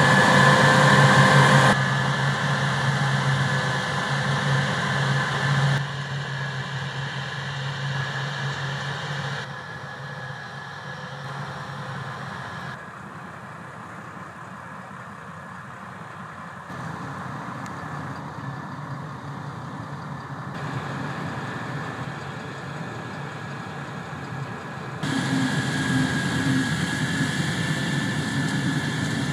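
Heavy harvest machinery running steadily, a combine harvester and tractors, with a low engine hum and a thin high whine. The level jumps up or down abruptly every few seconds as the sound switches between nearer and farther machines.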